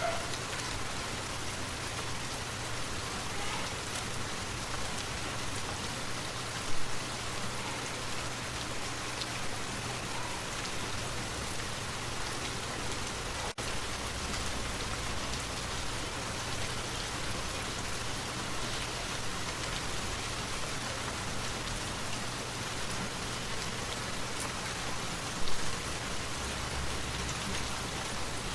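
Forest waterfall: steady, even rush and splash of falling water, with two brief louder bumps about 7 and 25 seconds in.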